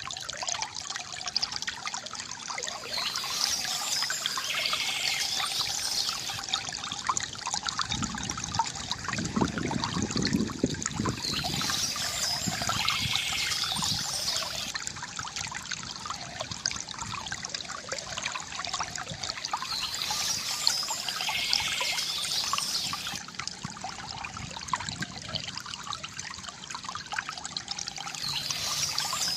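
Water trickling and splashing steadily from a bamboo fountain spout, with a deeper gurgle swelling about eight to eleven seconds in. Birds chirp over it in spells that recur about every eight seconds.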